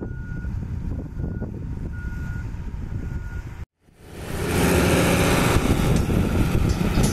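Cat 416E backhoe loader's diesel engine running while its reversing alarm beeps about once a second, each beep about half a second long. Nearly four seconds in the sound cuts out briefly, and a louder, even rushing noise takes over.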